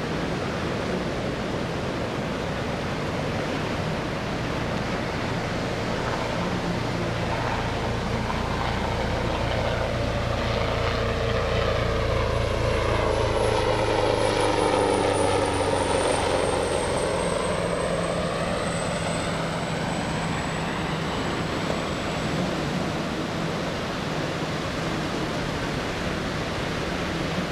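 Leonardo AW139 twin-turbine helicopter flying past: the rotor and turbine sound grows louder to a peak about halfway through, then the high turbine whine drops in pitch and fades as the helicopter moves away. A steady hiss of surf and wind runs underneath.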